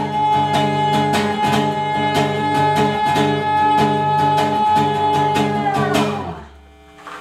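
Female singer holding one long high note over a steadily strummed acoustic guitar, the song's last note; voice and guitar stop together about six seconds in.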